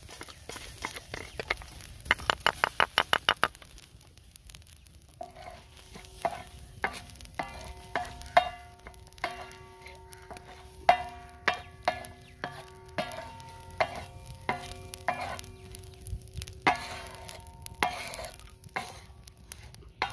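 Wooden spatula stirring and scraping dry whole spices across a hot iron tawa. The repeated knocks set the metal plate ringing. About two seconds in there is a quick run of clicks.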